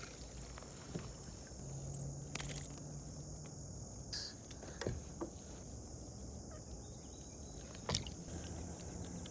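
Insects droning steadily at a high pitch, with a few sharp clicks and knocks scattered through.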